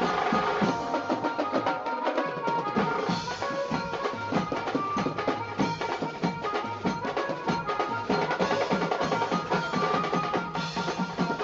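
Background music with a quick, steady drum beat under a melody.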